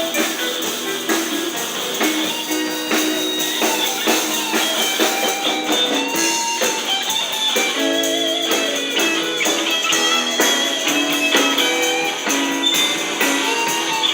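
Live blues band playing, with guitar prominent and a steady beat; no singing is heard.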